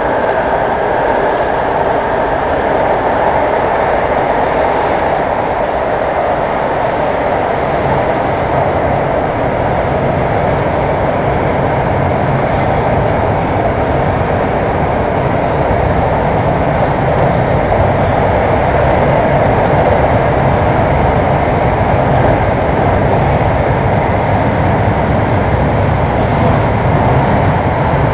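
Inside an AS-14 metro car running at speed through a tunnel: a loud, steady running noise of wheels on rail and air in the tunnel.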